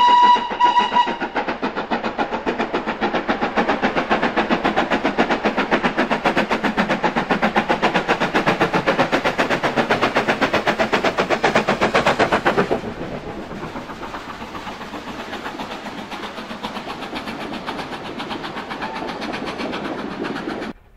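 Steam locomotive whistle sounding one long note that ends about a second in, then the engine's exhaust beating fast and regularly as it works a train past. The beat drops in loudness about two-thirds of the way through.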